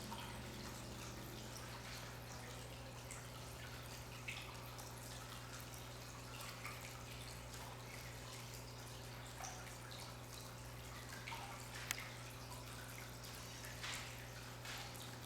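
Water trickling down a custom indoor tiered waterfall, faint and steady, with scattered drips and splashes and a low steady hum underneath.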